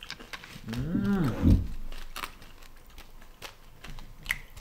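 Chewing on tanghulu, the hard sugar shell cracking in many small sharp clicks, with a hummed 'mmm' that rises and falls about a second in.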